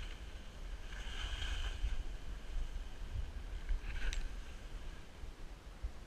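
Wind rumbling on the microphone of a camera worn by a downhill skier, with the skis swishing and scraping over snow through the turns and one short, sharper scrape about four seconds in.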